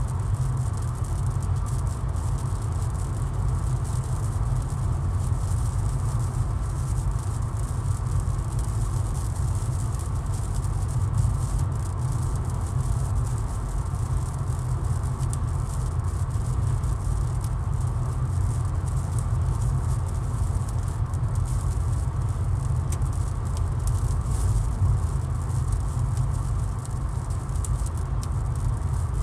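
A car driving on a highway in rain, heard from inside the cabin: a steady low road rumble with a fine, scattered patter of raindrops on the car's body and windscreen.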